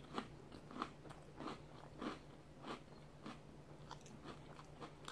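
Faint crunchy chewing of a mouthful of Boo Berry cereal with marshmallows, in a steady rhythm of about three chews every two seconds.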